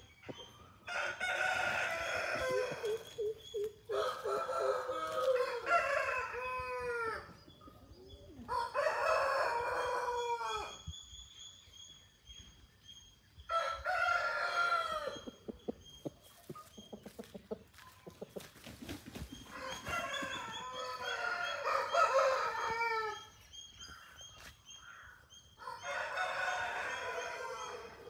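Aseel roosters crowing: about six long crows of two to three seconds each, one after another with short pauses between them.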